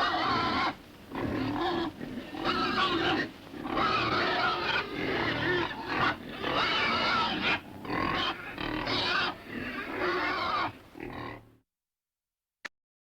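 Pig grunting in a pen, a run of grunts in bursts with short pauses between them, cutting off abruptly near the end, followed by a single short click.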